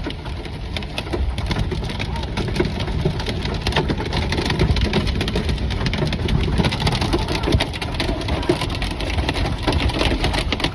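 Heavy rain and hail pelting the roof and windshield of a van, heard from inside as a dense, steady patter of countless small hits over the low rumble of the engine and road.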